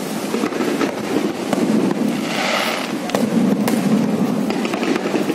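Fireworks display: aerial shells bursting in several sharp bangs over a continuous dense crackle of stars. A brief hiss comes about halfway through.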